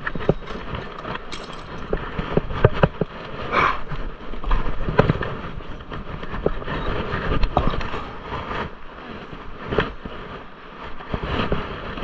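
A magnet fishing rope being hauled in hand over hand over a concrete dock edge: rope rubbing and rustling against clothing and gloves, with irregular small knocks and clicks.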